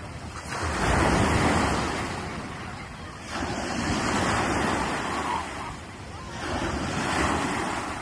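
Small waves breaking and washing up a sandy beach, the surf swelling and fading in three surges.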